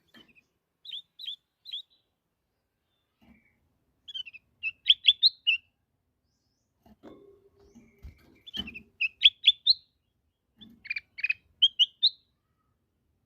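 Kutilang emas bulbul singing short phrases of quick, clear whistled notes, four phrases with pauses between them. A few dull low knocks come in the middle.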